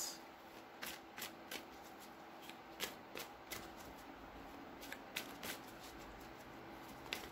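A steampunk tarot deck being shuffled by hand: quiet, sharp card clicks in small irregular groups.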